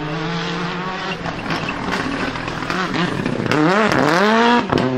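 Toyota Corolla WRC rally car's turbocharged four-cylinder engine running hard at speed. About three and a half seconds in, the engine note dips and climbs sharply several times as the revs fall and rise.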